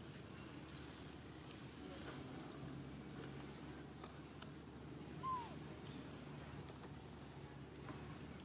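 Steady, high insect chirring, like crickets in the grass. About five seconds in comes one short squeak that falls in pitch.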